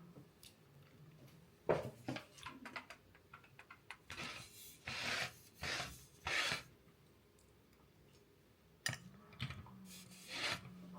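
Household handling sounds: scattered knocks and clicks with several short rubbing or scraping sweeps, over a low steady hum.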